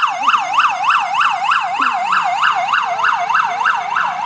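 Police car siren in yelp mode: a fast rising-and-falling wail, about four sweeps a second.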